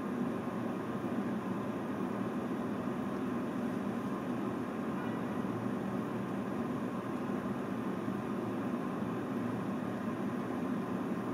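Steady vehicle noise: a constant hum of engine and road with no distinct events.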